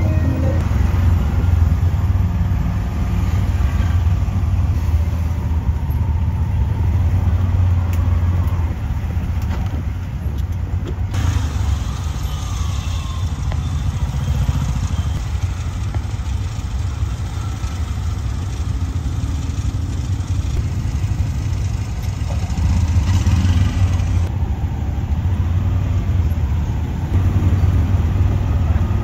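Tuk-tuk's small engine running with a steady low drone, mixed with surrounding city traffic of motorbikes and cars, heard from inside the passenger cabin.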